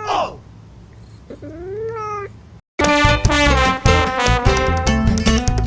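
A cat meowing twice: a short falling cry, then a longer meow that rises and falls. Just under three seconds in, the sound cuts out briefly and loud, upbeat brass-band swing music starts.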